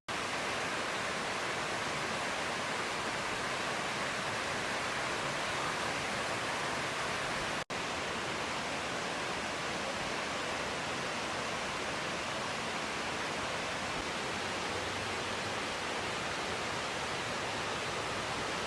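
Steady rushing of a mountain stream flowing over rocks. It cuts out for an instant about eight seconds in.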